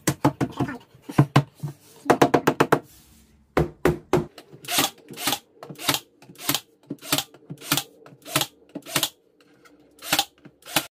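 Ryobi 18-gauge cordless brad nailer firing a steady run of single sharp shots about every half second into an MDF shelf front, over a faint steady hum. Before the shots, in the first three seconds, come a few clusters of quick knocks.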